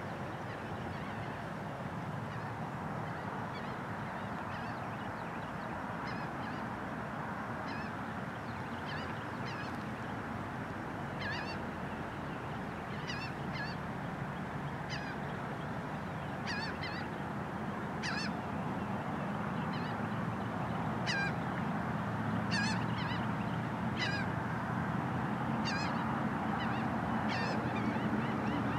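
Birds calling in short, sharp, falling cries over a steady background wash; the calls come more often in the second half. A low steady hum rises near the end.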